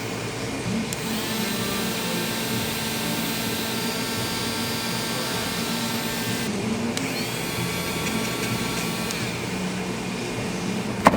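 A small electric motor appliance runs in two spells with a whining tone, its pitch rising as it spins up for the second spell, over a steady hum; a sharp click near the end.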